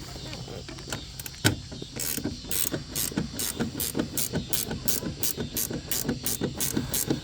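Hand ratchet wrench clicking in quick, even back-strokes, about three to four a second from about two seconds in, as the door hinge bolts are tightened down.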